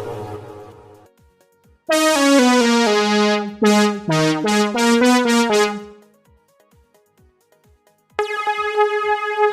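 Toxic III software synthesizer sounding presets: a bright, sharply struck synth phrase of several notes plays from about two seconds in and fades out around six seconds. A new sustained synth tone starts near the end.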